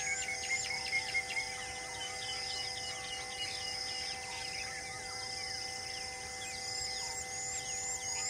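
Birds chirping and calling, busiest in the first few seconds. A high insect or bird call repeats about twice a second, over steady held tones.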